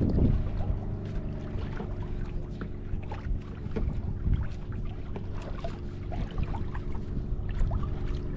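A small boat's motor running steadily, with scattered light clicks and knocks over it.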